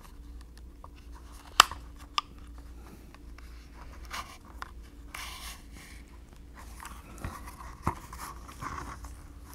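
Leather lace being pulled through the stitches of a leather holster by hand: soft rustling and rubbing of lace on leather, with a few sharp clicks.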